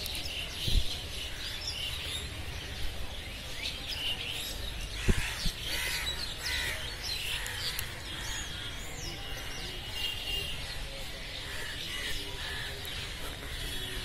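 Many birds chirping and calling in the trees, short high chirps and whistled calls overlapping throughout. Two dull thumps stand out, about a second in and about five seconds in.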